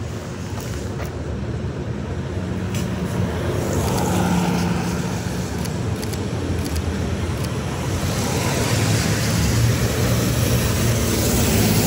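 Street traffic: vehicle engines running with steady road noise, growing louder in the last few seconds as traffic comes closer.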